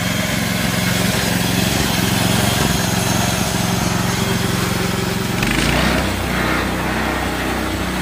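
Small gasoline engine of a bandsaw sawmill running steadily. About five seconds in its note drops lower, with a brief rise of hiss.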